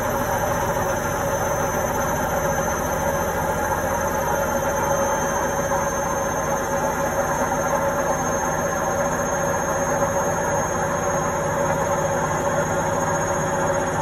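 Indesit front-loading washing machine running, a steady mechanical whir with a constant hum-like tone over the noise of the turning drum.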